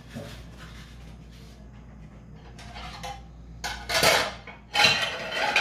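Soft rustle of a potato cheese ball being rolled in dry breadcrumbs in a bowl, then louder clatter of crockery being handled, in two bursts near the end.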